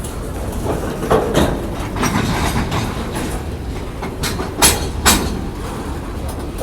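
Freight train cars rolling past with a steady rumble, their wheels giving sharp clacks over the rail joints: a pair of clacks about a second in and a louder cluster around four to five seconds in.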